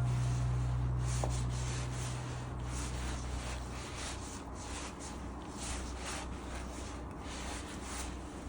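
Soft, irregular rubbing and scraping of hands working sourdough bread dough, with background music fading out in the first few seconds.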